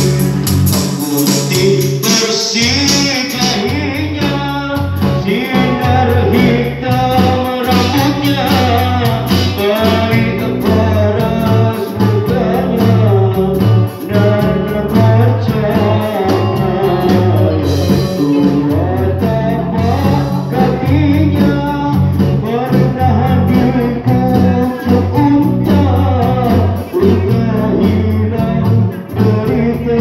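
A live band playing a sholawat, a devotional song praising the Prophet Muhammad: a man singing over electric guitars and an electronic drum kit, amplified through PA speakers.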